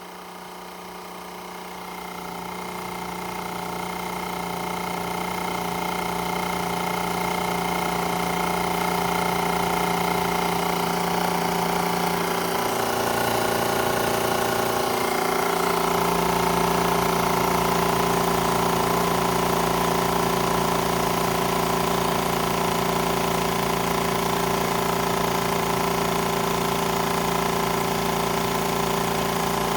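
MAX AK-HL1030E normal/high-pressure electric air compressor running steadily as it pumps. It grows louder over the first several seconds, and its tone shifts about halfway through.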